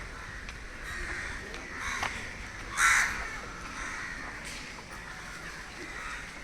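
Crows cawing repeatedly, with one loud, harsh caw about three seconds in.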